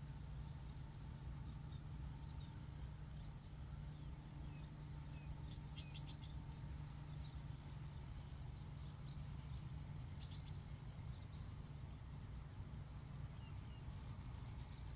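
A steady high-pitched drone of insects, with a few short chirps partway through and again later, over a low steady rumble.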